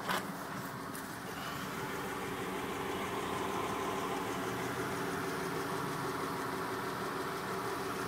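Volvo 960 engine idling steadily, heard at the exhaust close to the tailpipe and under the car; the hum grows a little louder about two seconds in. A short knock at the very start.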